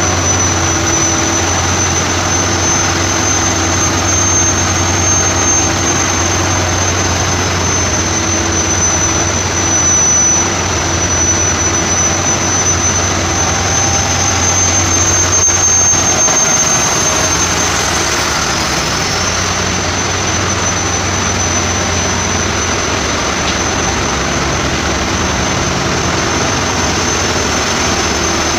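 Loud, steady din of a ship's engine room with its diesel engines running: a deep hum underneath and a thin high whine held steady on top.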